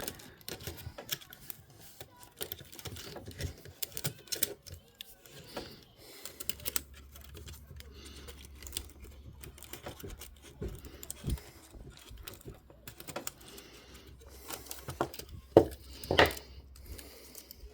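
Small plastic and metal clicks and taps of a Sony MZ-R3 MiniDisc recorder's casing and parts being handled and fitted together in reassembly, with two louder sharp clicks near the end. A faint low hum comes in about six seconds in.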